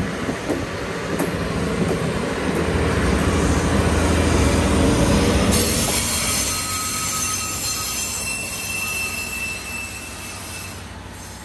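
A track maintenance train rolls past with a heavy rumble of wheels and machinery, loudest about four to five seconds in. After an abrupt change about halfway, a Plasser & Theurer SSP 110 SW ballast regulator moves by more quietly, with thin high wheel squeals, fading toward the end.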